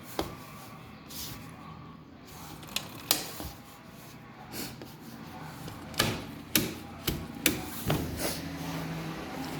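Washing machine running: a series of knocks and clunks, bunched in the second half, with a steady motor hum coming up near the end.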